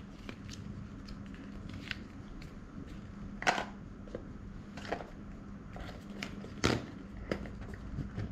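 Handling of earbud packaging on a table: paper cards, cardboard boxes and a plastic charging case giving scattered light clicks, taps and rustles, the loudest about three and a half and six and a half seconds in, over a steady low hum.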